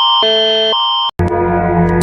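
Electronic emergency alert tone alternating between two tones about every half second, cutting off about a second in. After a brief gap, a low, steady sound with several held tones begins.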